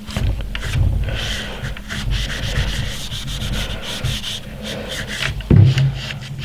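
A brass cleaning rod rubbing and scraping in the bore of a .22 bolt-action rifle as it is worked through the barrel, in short uneven strokes. There is a duller knock about five and a half seconds in.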